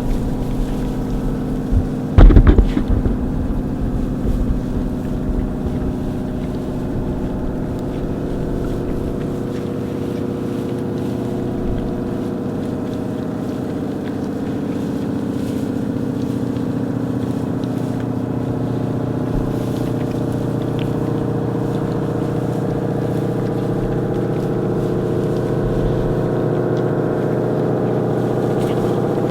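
A steady motor drone holds one even pitch throughout. One sharp knock comes about two seconds in.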